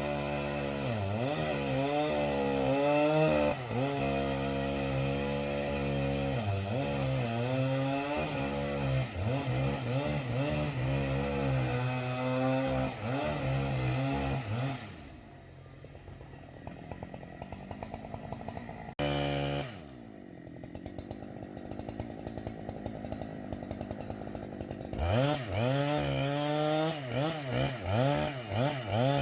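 Husqvarna two-stroke chainsaw working at high revs, its engine pitch rising and falling as it is loaded in the cut. About halfway through it drops back to a lower, steadier run, blips once briefly, then goes back up to full speed near the end.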